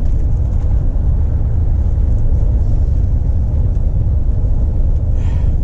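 Steady low rumble of a lorry driving on the road, engine and tyre noise heard from inside the cab.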